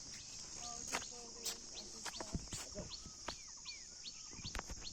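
Small birds chirping repeatedly, short quick notes and a few curved calls, over a steady high-pitched insect buzz, with a few faint clicks.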